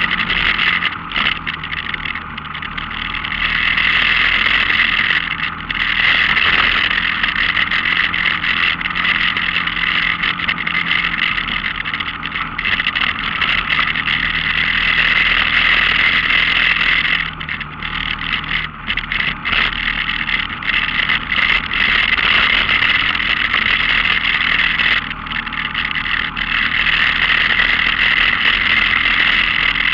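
Off-road vehicle's engine running steadily along a dirt trail, a constant hum under a loud hissing rush. It eases off briefly a few times, about two seconds in, around two-thirds of the way through and again near the end.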